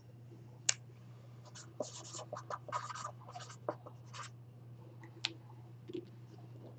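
Marker pen writing a name on a cardboard box: a quick run of short scratching strokes, with a sharp click shortly before and another after. A steady low hum runs underneath.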